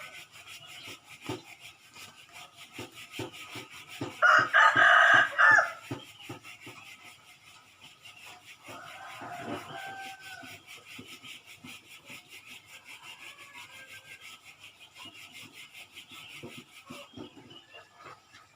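Birds calling in the morning. One loud call of about a second and a half comes about four seconds in, with fainter calls around it, over a faint steady ticking repeating a few times a second.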